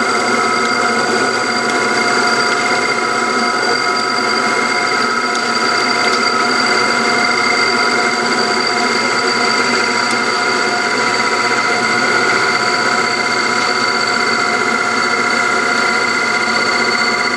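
Metal lathe running with the tool cutting a flat on a sand-cast metal wheel blank: a steady whine of several high tones over the hiss of the cut.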